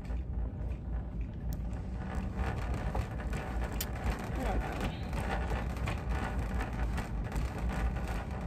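Shop background noise: a steady low rumble with faint voices murmuring in the background.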